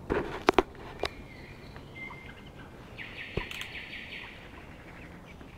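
A few sharp knocks in the first second, then high bird chirps: a single chirp or two, and a quick run of rapid chirps about three seconds in.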